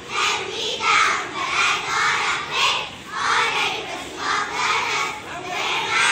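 A large group of young schoolgirls singing together in unison, in short loud phrases one after another.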